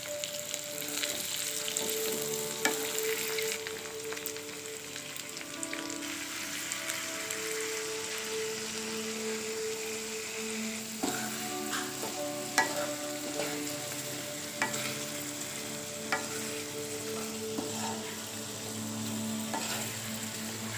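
Food sizzling as it fries in a pan while being stirred, with a few sharp clicks of the utensil against the pan.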